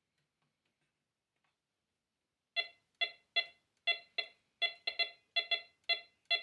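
MD-4030 metal detector giving short, choppy pitched beeps, about three a second, over an iron nail: the broken tone that marks a ferrous target rather than the clean tone of a coin. The beeping starts about two and a half seconds in.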